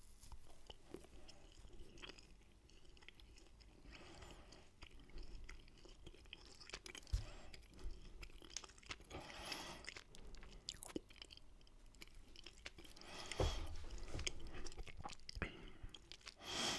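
A person chewing a soft pressed bar of dried dates and chopped roasted almonds, close up: quiet, moist mouth sounds with a few louder crunches.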